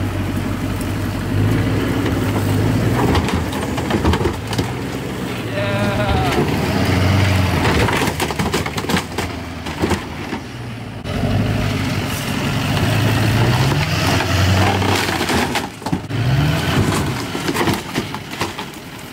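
Lifted mega truck's engine running and revving in several rises and falls as its giant tyres climb onto and roll over a jet ski hull, with scattered cracks and crunches of the hull breaking under the wheels.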